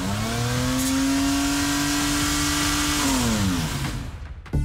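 Toyota 1JZ inline-six, the auxiliary engine that spins the exhaust-pulling turbo, revved up and held at high revs for about three seconds, then winding down as the throttle is let off.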